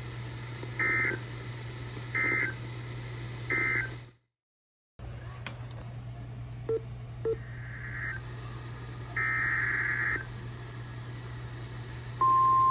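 Three short bursts of Emergency Alert System SAME data tones from a NOAA Weather Radio, the end-of-message signal after a warning. The audio then drops out for about a second, and two more data bursts follow. Near the end, the steady 1050 Hz weather radio alarm tone starts, announcing the next warning.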